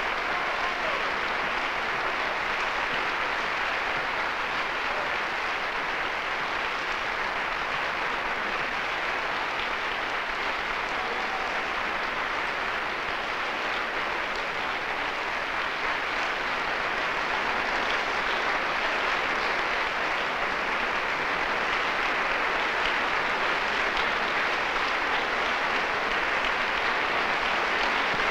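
Audience applauding, a dense steady clapping that goes on without a break.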